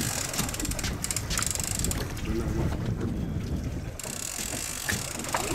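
Wind on the microphone and water lapping at a boat's hull, with a quick run of clicks in the first second or so.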